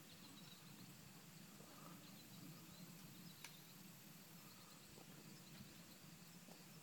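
Near silence: faint outdoor field ambience with a low steady hum and a single faint tick about halfway through.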